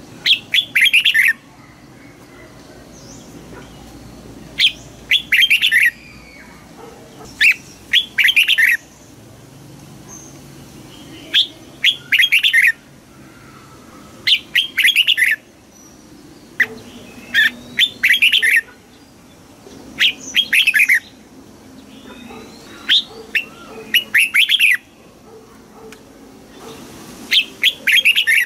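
Red-whiskered bulbul singing: short, loud, rapid song phrases of quick up-and-down notes, repeated every two to three seconds.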